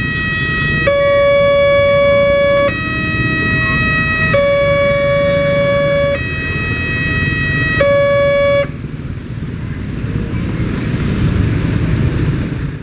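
Railway level-crossing warning siren sounding a two-tone alternating wail, switching between two chords about every 1.7 seconds. It stops about 8.5 seconds in, leaving a low, steady rumble.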